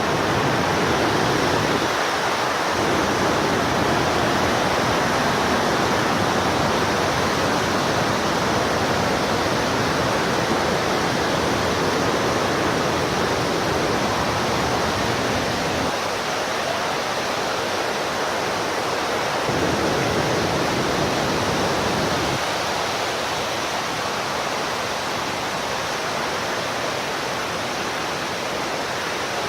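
Waterfall roaring steadily: a constant rush of falling water with no breaks.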